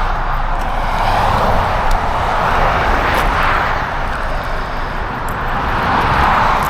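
Road traffic noise: a loud, continuous rush of vehicles, swelling about three seconds in and again near the end as vehicles pass.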